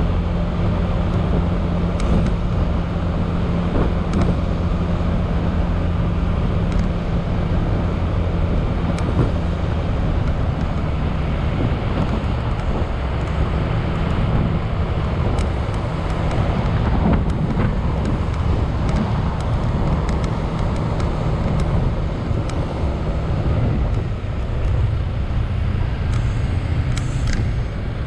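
Wind and road noise from riding along a road on a moving vehicle, with a steady low hum that fades out about 24 seconds in.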